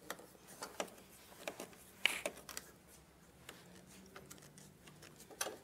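Short bar clamps and deep-throated C-clamps being hand-tightened: a scattering of faint clicks and light metal knocks, the loudest about two seconds in.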